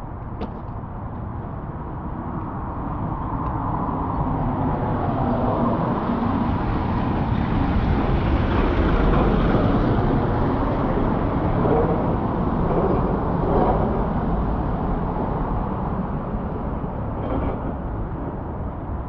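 A vehicle passing along the street: its noise builds over several seconds, peaks about halfway through and fades away again.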